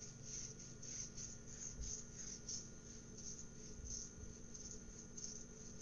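Faint, irregular clicking and scratching of a small precision screwdriver turning screws into a smartphone's plastic midframe cover, with light handling of the phone's plastic parts.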